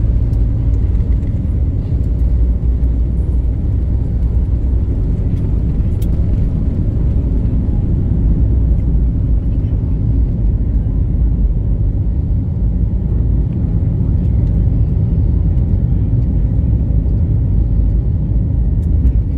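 Steady low rumble of an Airbus A320-family airliner's jet engines at takeoff thrust, heard from inside the cabin, through the takeoff roll, liftoff and initial climb.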